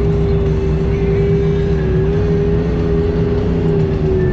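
Side-by-side UTV engine and drivetrain running at a steady cruising speed on a dirt trail, heard from the cab: a loud, even drone with a steady whine that wavers slightly in pitch.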